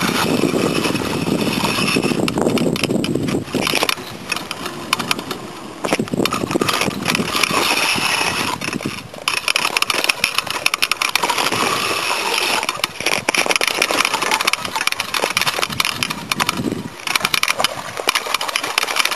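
Fishing reel being cranked under the load of a hooked carp: rapid mechanical clicking that stops and starts several times. The angler says the reel is about to give out.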